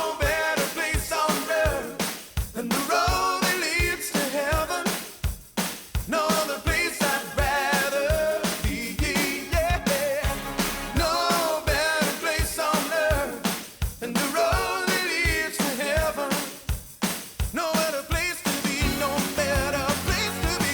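Upbeat pop-rock band music with a steady drum beat and a wavering lead melody line over it.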